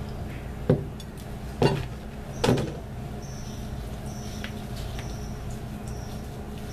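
A metal spoon knocks three times against a plastic tub of mashed potatoes, about a second apart. Then quieter mixing in the tub, with faint short high-pitched squeaks repeating.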